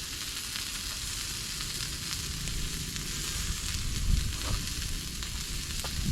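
Meat sizzling in a frying pan on a camp stove: a steady hiss with faint crackles. A low wind rumble on the microphone swells about four seconds in.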